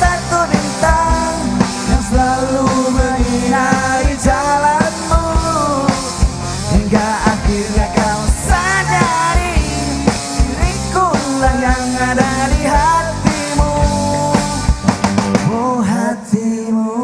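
Live rock band playing, with a drum kit under a gliding melodic lead line. Near the end the drums drop out and the music thins as the song winds down.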